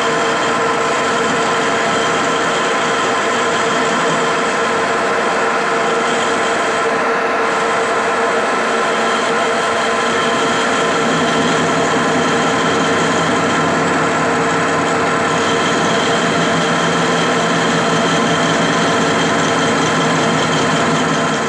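Centre lathe running steadily, its spinning chuck and headstock gearing giving a continuous hum of several steady tones, while a metal workpiece is turned.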